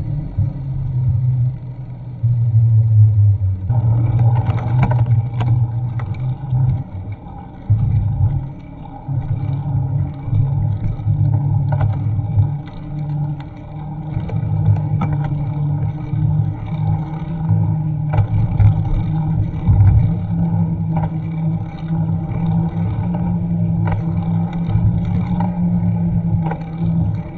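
Wind buffeting and road rumble on a bike-mounted action camera while cycling, a low rumble that swells and drops unevenly.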